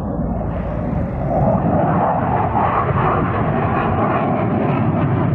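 F-16 fighter jet's single jet engine flying past, a continuous rushing jet noise that swells about a second in and stays strong.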